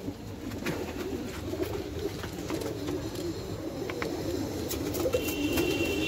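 Domestic pigeons cooing, a low warbling that runs on throughout, with a few short sharp clicks over it.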